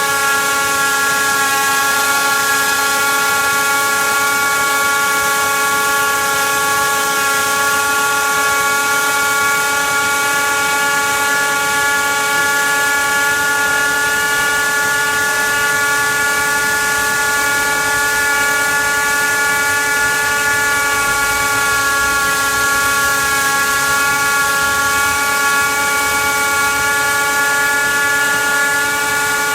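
Hilti wire saw machine running steadily while cutting, giving a high whine made of several steady pitches over a hiss.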